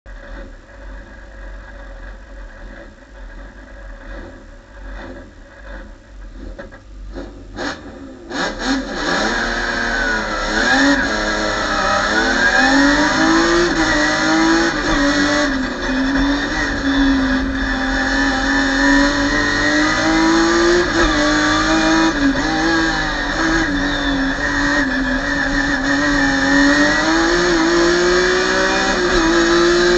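BMW M3 race car's engine heard from inside the cabin, idling low at first. About eight seconds in it launches and accelerates hard, the engine note climbing and dropping back at each upshift as it runs near full throttle.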